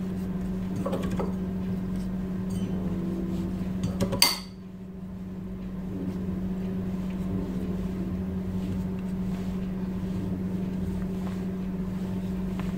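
Quiet kitchen handling sounds against a steady low hum: hands working a pastry wrapper on a steel plate, with a brief clatter of metal on the plate about four seconds in.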